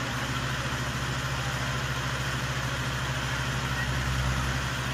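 Diesel engines of Mahindra 575 DI tractors idling with a steady, even low pulse, picking up slightly near the end.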